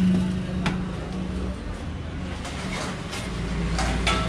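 A steady low mechanical hum with a single sharp clink about half a second in, then steel plates clattering near the end.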